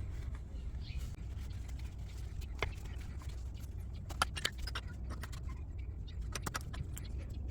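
Scattered light metallic clicks and clinks as a CV axle and tools are handled, over a steady low hum.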